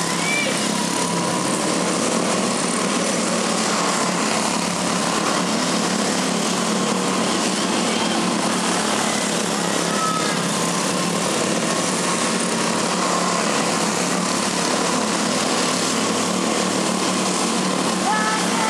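The small engines of several quarter midget race cars running laps on a dirt oval, a steady engine drone at an even level.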